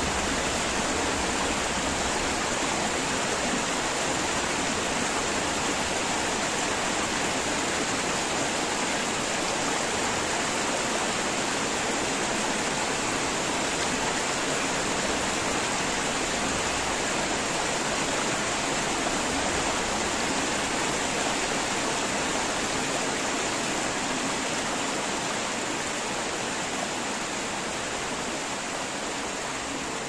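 Small woodland waterfall and stream cascading over mossy rock ledges into a shallow pool: a steady rush of water that eases slightly near the end.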